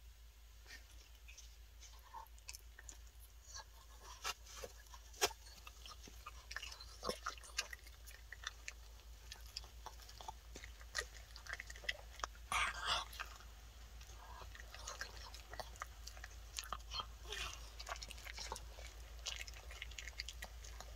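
Miniature Pinscher biting and chewing a homemade baked dog treat: small, irregular crunches and wet chewing clicks, with a busier burst of crunching about twelve seconds in.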